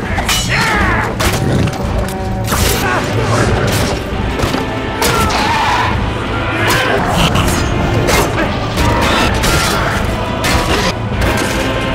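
Film battle sound mix: orchestral score under a dense run of heavy impacts, crashes and clashes, with voices.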